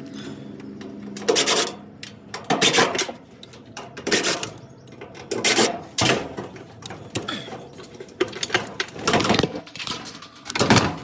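Short, sharp clanks and rattles of metal dryer parts being handled and moved, coming roughly every second or so, as the dryer is taken apart for a motor swap.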